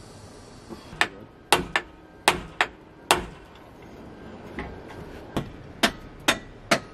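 Hammer blows on the iron fittings of a church bell's wooden headstock as it is being dismantled: about ten sharp, irregular strikes, the heaviest in the first half, each with a short metallic ring.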